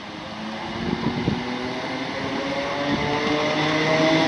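ScotRail Class 318 electric multiple unit pulling away, its traction motors whining in several tones that rise steadily in pitch and grow louder as it accelerates. There are a few knocks about a second in.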